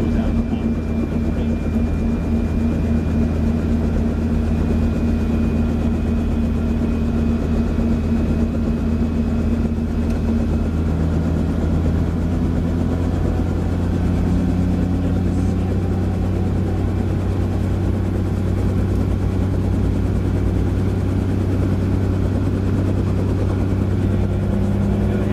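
Helicopter engine and main rotor running, a loud steady drone with a low hum; the engine note shifts slightly about halfway through.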